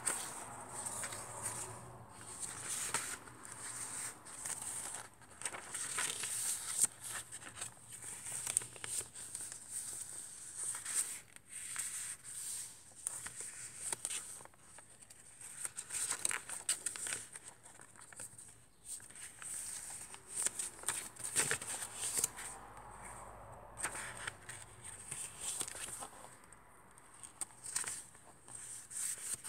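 Paper pages and cards of a handmade junk journal rustling and crinkling as they are handled and turned, in short, irregular bursts.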